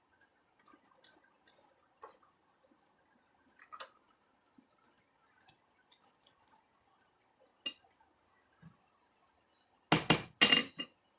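Scattered light metallic clicks and taps, then two loud ringing metal strikes about half a second apart near the end: a forging hammer striking steel on the anvil.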